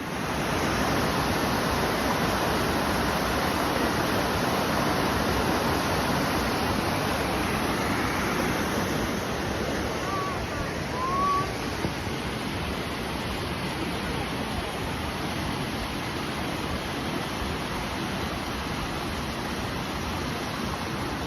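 Steady rush of a creek running over waterfalls, with two brief high chirps about halfway through.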